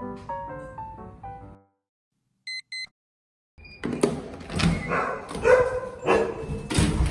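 Piano music fades out about a second and a half in. After a silent gap, a digital door lock gives two short electronic beeps, and then a large standard poodle barks loudly and repeatedly.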